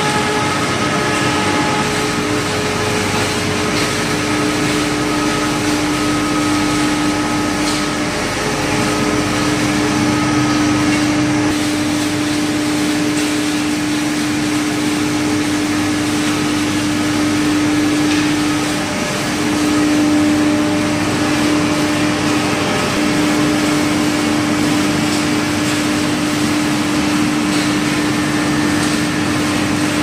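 Machinery of a wood pellet production line running steadily: motors, a pellet mill and conveyors making a constant din with a steady hum over it that drops out briefly a few times.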